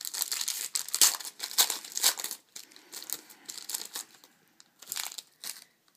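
Crinkling and tearing of a trading-card pack wrapper being ripped open and handled. The crackle is dense for the first two and a half seconds, then comes in scattered short crinkles.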